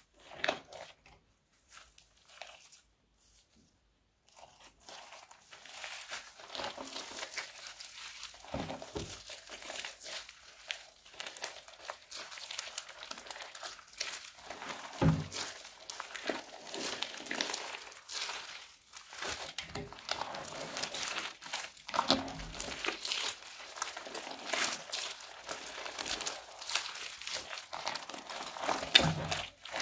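Hands squishing and stretching a sticky slime loaded with foam beads, making a continuous crinkly crackle of small crunches and sticky snaps, with a few soft thuds. It starts about five seconds in, after a few faint clicks.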